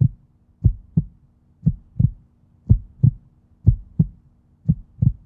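Heartbeat sound effect: deep paired thumps in a lub-dub rhythm, about one beat a second.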